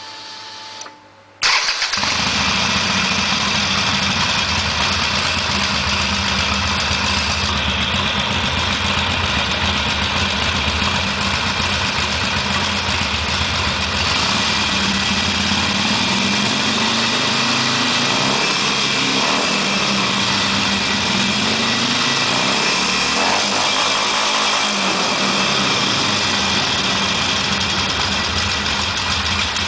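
Harley-Davidson Sportster EFI's air-cooled V-twin engine, hot, starting about a second and a half in after a brief whine, then idling steadily. The idle speed rises and falls gently twice in the second half.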